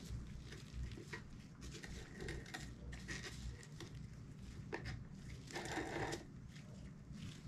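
Handling noise from an inline skate being turned over in gloved hands: scattered light clicks and knocks, with a longer rubbing sound about five and a half seconds in.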